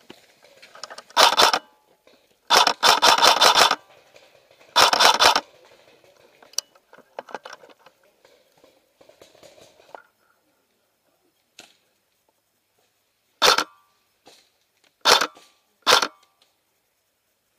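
Airsoft guns firing bursts of rapid shots. There are three bursts in the first five seconds, the middle one lasting about a second. After a lull of several seconds come three short bursts in quick succession near the end.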